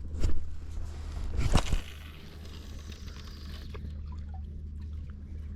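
Water sloshing around a small inflatable boat over a steady low hum, with two sharp knocks in the first two seconds.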